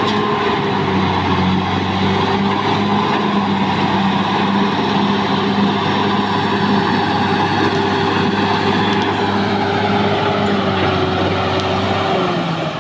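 Caterpillar D6R XL bulldozer's diesel engine running steadily under load, with a thin high whine above the engine note. The engine note drops near the end.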